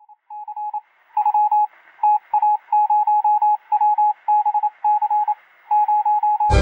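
Morse code beeping: a single steady electronic tone keyed on and off in quick short and longer pulses, in runs separated by brief pauses. Right at the end, loud music cuts in.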